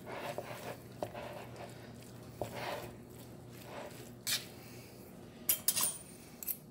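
A metal fork scraping and clicking against a bowl while shredding moist, cooked chicken, with soft squishing of the meat; the clicks come irregularly, with a quick cluster of sharper ones near the end. A faint steady hum runs underneath.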